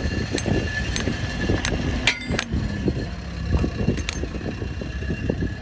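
Farrier's hammer tapping horseshoe nails into a mule's hoof: a series of sharp metallic taps about every half second, some ringing briefly, with a pause in the middle. A low rumble runs underneath.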